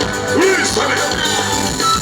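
Loud band music playing.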